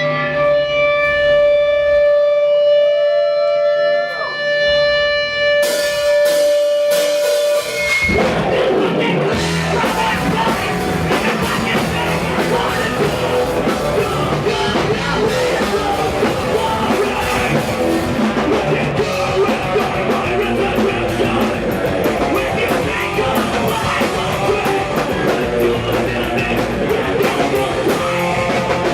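Rock music: held guitar notes ring with a pitch bend for about eight seconds, then the full band comes in with drums and guitars.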